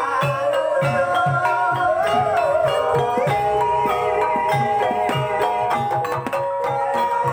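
Javanese gamelan music accompanying an ebeg horse dance: mallet-struck keyed instruments play steady repeating notes over a drum beating about twice a second, with a wavering melody line rising over them about two seconds in.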